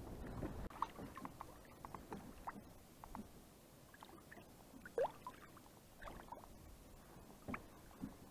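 Small splashes, drips and gurgles of water at the boat's side as a perch is held at the surface and released, with one sharper splash about five seconds in.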